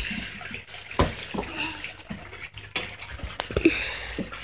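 Handling noise from a phone being held and moved: rustling and a few sharp knocks on the microphone, over a steady hiss.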